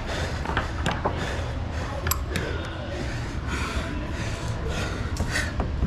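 A climber breathing hard from exertion, heavy breaths roughly once a second, with a few sharp clicks over a steady low hum.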